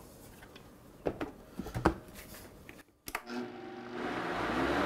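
A few light clicks and knocks as the Vitamix blender's container and lid are handled. Then, about three seconds in, the blender's motor starts running and grows louder as it blends thick sauce.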